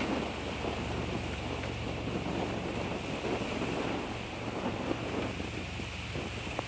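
Strong wind buffeting the camera microphone: a steady rushing noise with a low, gusty rumble underneath.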